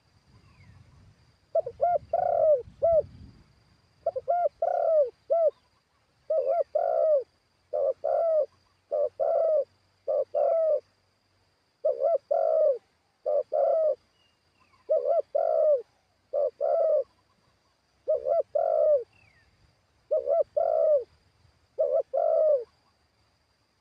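Spotted dove cooing over and over in short phrases of two to four notes, a phrase every second or two, with a faint steady high whine in the background.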